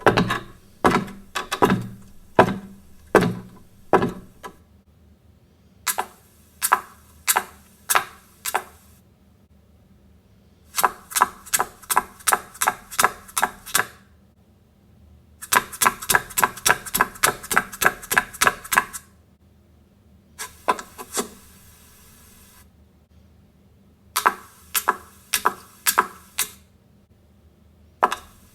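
Sharp clicking and knocking on a hard surface, in bursts of a few seconds with short pauses between them. Some runs are fast, about five to seven clicks a second, and the first burst has heavier knocks.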